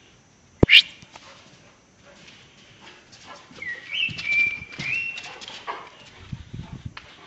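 Young Caucasian Shepherd dog whining in a high, wavering voice for about a second and a half near the middle. There is a sharp knock just under a second in.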